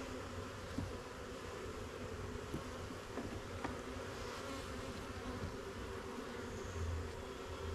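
A mass of honeybees buzzing steadily around an open hive, with a few faint clicks from frames being handled.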